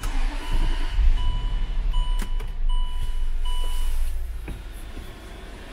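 Land Rover LR3 engine starting and running, with the instrument cluster's warning chime beeping about five times over it. The rumble eases after about four seconds as the beeping stops.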